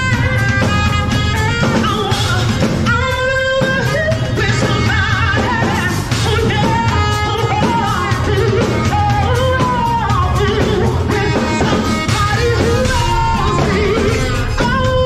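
Live band music: a woman singing into a microphone through small amplifiers, backed by a drum kit and saxophone.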